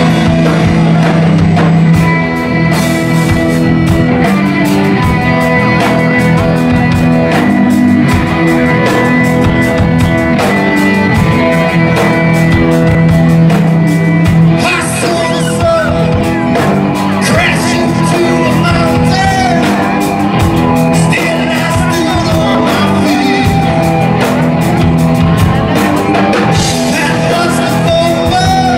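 Live metal band playing loud: electric guitar and drums, with the vocalist singing and shouting into a microphone in the second half.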